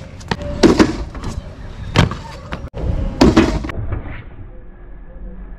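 Stunt scooter wheels and deck knocking and clattering on concrete during a run-up and jump for a trick, over a low rolling rumble. There are sharp knocks under a second in and at about two seconds, and a heavier clatter around three and a half seconds.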